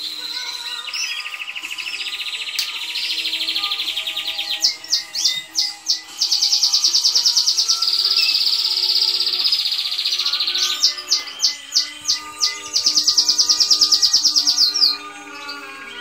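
Domestic canary singing: long, very fast trills broken by short runs of separate chirps, the loudest trills in the middle and again near the end, where the song stops.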